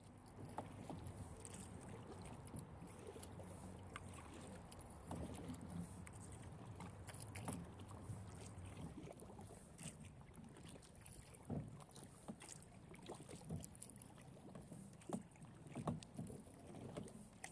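Kayak paddling on calm water: faint, irregular small splashes and drips from the paddle blades, some sharper than others, over a low steady rumble.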